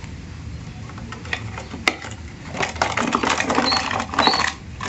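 Rapid scratchy clattering of a small white cardboard bird box being handled and its flaps folded shut. The clattering starts a little over a second in and is busiest in the second half.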